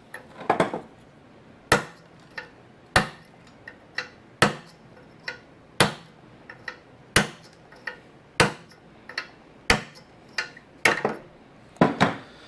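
Hammer striking a punch to drive out the lower kingpin bearing of a Coleman 4x4 front axle: a steady run of hard metallic blows a little over a second apart, with lighter taps in between.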